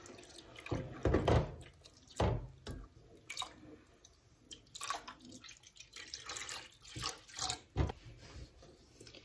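Milk and cornstarch poured in a thin stream into a stainless steel saucepan of broth, splashing and dripping, while a wooden spoon stirs and knocks irregularly against the pan.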